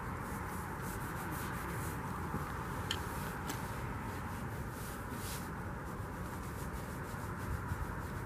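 Rustling and scuffing of padded winter clothing and boots as a person moves and kneels on gritty, snow-dusted concrete, with two sharp clicks about half a second apart some three seconds in, over a steady low background rumble.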